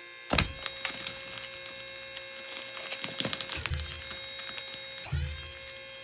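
Limestone cracking and crunching in a run of sharp cracks as a half-inch galvanized forged eye bolt, set without glue, is pulled under load and the rock breaks away around it. A steady hum runs underneath, with a few dull thumps later on.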